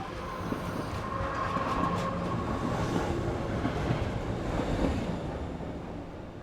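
Train running on the rails with a dense rumble. It swells up, holds, and fades away near the end, with a few faint steady tones over it.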